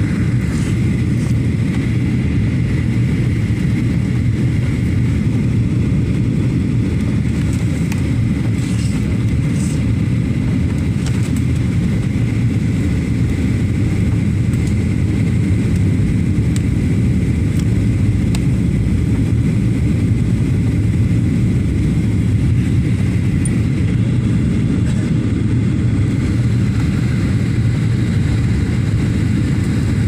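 Jet airliner cabin noise at a window seat during the climb: a steady, deep drone of the engines and rushing air, with a faint high whine over it.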